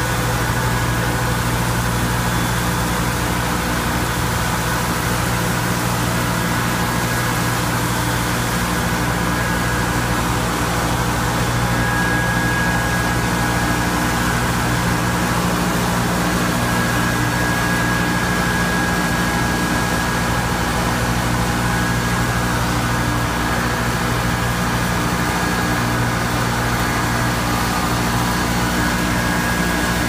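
Steady hum of running industrial plant machinery, electric motors and fans, with a constant low drone. A faint high whine strengthens now and then.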